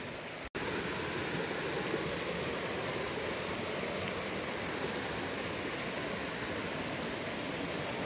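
Steady rush of flowing river water, broken by a brief dropout about half a second in.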